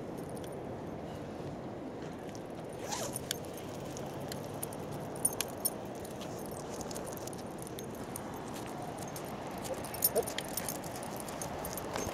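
A few small metallic clinks and jingles, in clusters about three, five and ten seconds in, over steady low outdoor noise.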